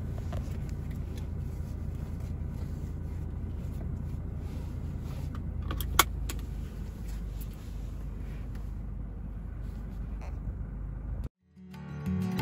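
Steady low rumble of a car cabin with small clicks of a seat belt being drawn out, then one sharp click about six seconds in as the seat-belt buckle latches. Near the end the sound cuts off and music begins.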